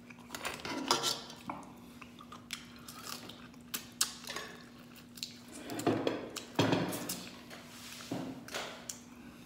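A person eating crab with rice by hand: scattered clicks and crackles of crab shell, chewing and mouth noises, and light taps on the plate, busiest about six and seven seconds in. A faint steady hum runs underneath.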